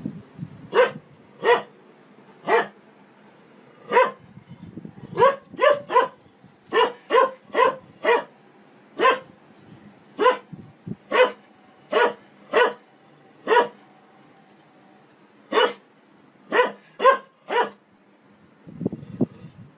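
A German Shepherd barking over and over, about twenty single sharp barks roughly one or two a second, with a pause of about two seconds some two-thirds of the way through.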